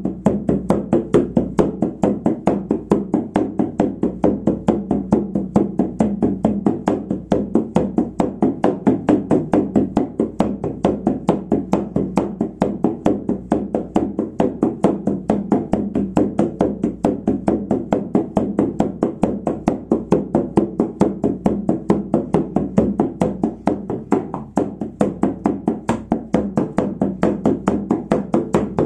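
Shamanic frame drum struck with a padded beater in a steady, even beat of about four strokes a second, each stroke leaving a low ringing tone: the unbroken drumming that carries a shamanic journey.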